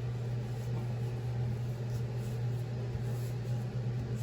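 A steady low mechanical hum, like a motor or fan running, with faint light handling ticks over it.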